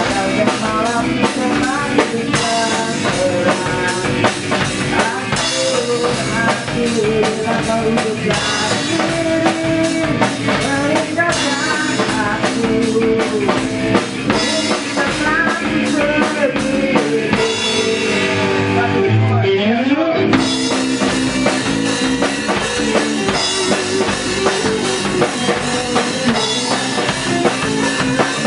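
Rock music: an instrumental passage with drum kit and guitar over a steady beat. About two-thirds of the way through, the treble cuts out for a couple of seconds under a sliding pitch sweep, then the full band comes back in.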